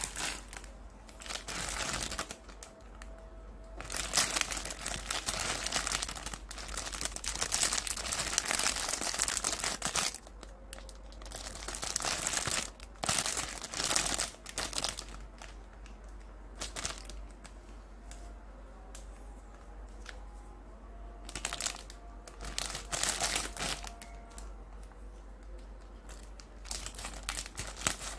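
Plastic Indomie instant-noodle packet crinkling as it is picked up, squeezed and turned over in the hands, in several bursts of a few seconds each with quieter gaps between.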